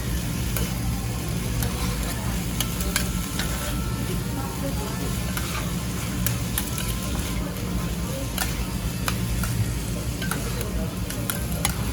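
Spatulas scraping and clicking on a hot griddle as monja ingredients (chopped cabbage, sakura shrimp, dried squid) are stirred and chopped, with the food sizzling. Irregular sharp taps of the spatula edges on the griddle over a steady sizzle, with a steady low hum underneath.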